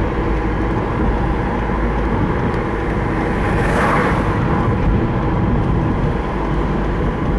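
Car's 1.9 TDI diesel engine running steadily with a low rumble, a short swell of hiss about four seconds in.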